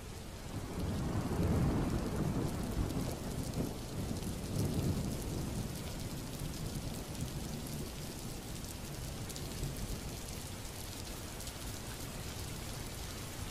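Steady rain falling on wet brick paving, with a low rumble that is strongest in the first few seconds and then eases.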